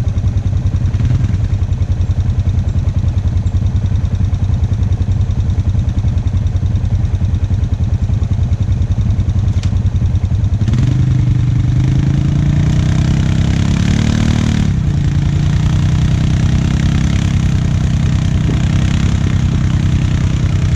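ATV engine idling close by with a steady, rapid low pulsing. From about eleven seconds in the engine note gets fuller and is revved, its pitch climbing and falling for a few seconds before settling.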